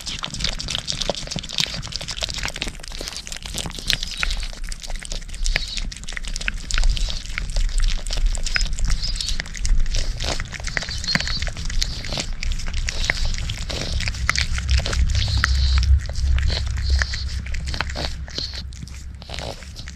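Cat eating a Churu paste treat close to the microphone: many quick wet mouth clicks of licking and chewing. A low rumble runs beneath and swells about three-quarters of the way through.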